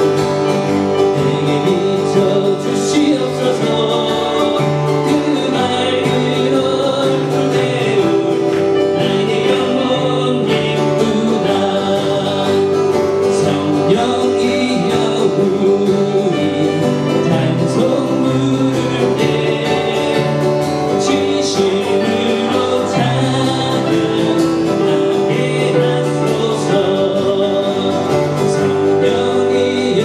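A man sings a Korean worship song, accompanying himself on acoustic guitar, over a steady bass line.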